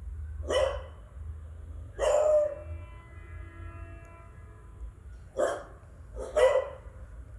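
Adult beagle barking: four separate barks with pauses between them, the second one longer than the others.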